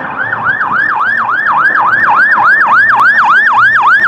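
Fire engine's electronic siren in fast yelp mode: a loud tone sweeping rapidly up and down, about four times a second.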